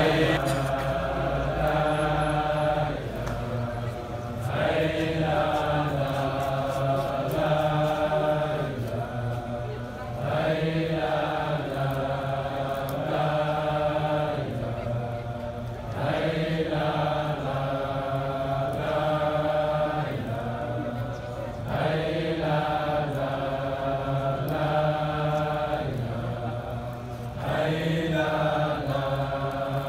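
Many voices chanting a religious litany (dhikr) together in unison, the same melodic phrase repeating about every six seconds.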